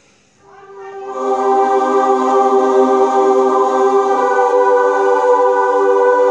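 Roland Lucina AX-09 keytar playing a held chord that swells in about half a second in and then sustains steadily. Its lowest note drops out about four seconds in while the upper notes ring on.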